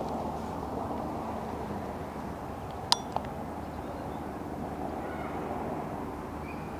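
Steady outdoor riverbank background noise, broken by a sharp click about three seconds in and a fainter click just after. Faint bird calls come near the end.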